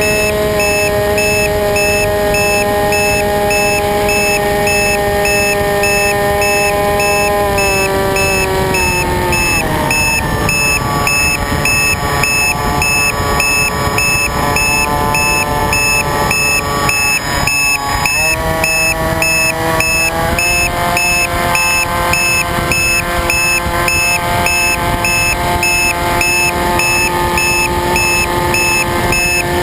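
RC airplane's motor running with rushing air noise. It is steady at first, throttles down about a third of the way in, then throttles back up just past the middle to a slightly lower steady pitch.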